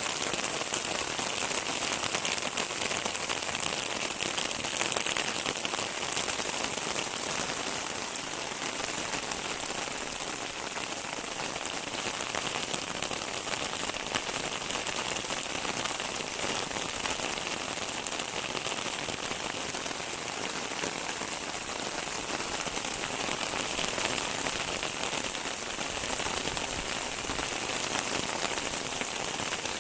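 Steady rain falling and pattering on surfaces, a dense even hiss of many drops.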